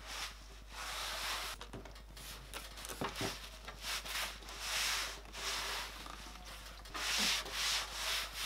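A cloth wiped over a bare wooden desktop, in repeated rubbing strokes.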